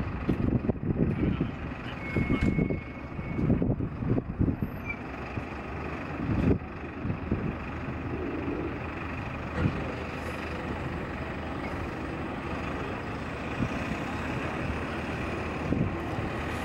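Airbus A400M's four TP400 turboprop engines running on the runway, a steady drone with a constant high whine. Uneven low gusts of rumble come and go over the first several seconds before the sound settles into the even drone.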